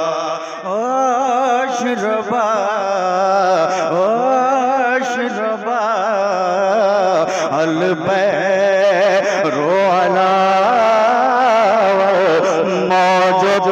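A man singing a naat in tarannum style into a microphone: long drawn-out melismatic notes with a heavy, wavering vibrato and no clear words.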